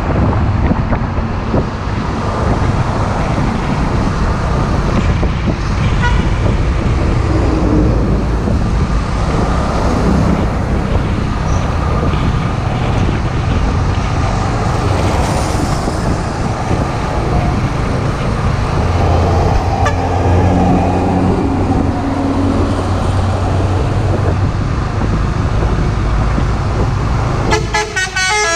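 Heavy highway traffic with trucks passing: a continuous rumble of engines and tyres, with deeper engine drones rising and fading. Near the end a truck horn starts sounding a rapidly alternating multi-tone pattern.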